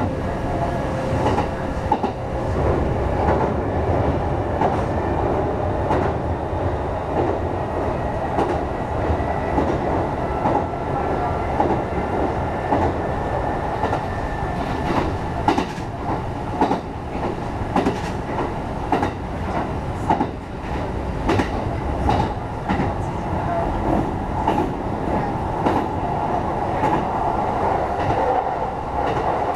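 Inside a 1200 series electric train running at speed: a steady rolling rumble with irregular sharp clacks of the wheels over rail joints.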